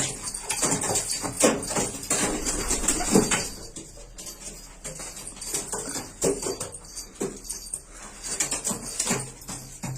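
Domestic pigeons cooing and moving about, with many irregular short scuffling sounds.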